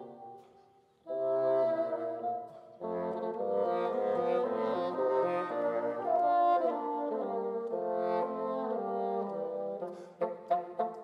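Two bassoons playing a classical duet: a phrase dies away, then after a brief pause the two enter again with sustained melodic lines in two parts, breaking into quick short repeated notes near the end.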